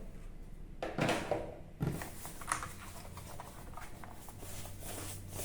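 Rustling and handling of packaging as the keyboard's last protective cover is taken off, with a longer rustle about a second in and a small click a little later.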